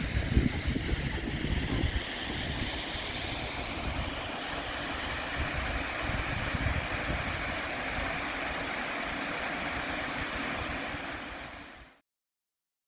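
Wind buffeting the microphone over a steady outdoor hiss. The buffeting is strongest in the first two seconds, and everything fades out near the end.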